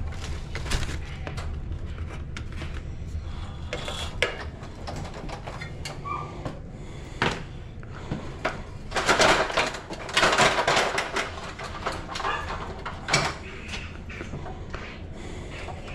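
Knocks, clicks and rustling from things being handled and moved, with a louder burst of scraping and clatter about two-thirds of the way through, over a steady low hum.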